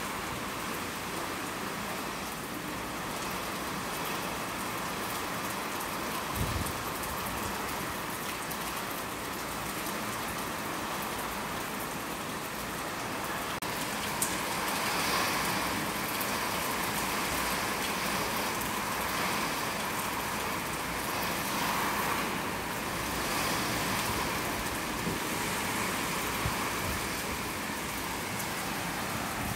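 Heavy typhoon rain pouring down in a steady rush, growing a little louder about halfway through and swelling and easing several times after that.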